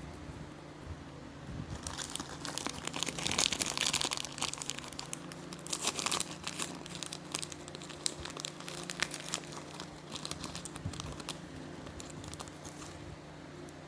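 Crinkling and tearing of a toy capsule's plastic wrapping as it is unwrapped by hand. It is loudest a couple of seconds in, then settles into lighter crinkles and small clicks.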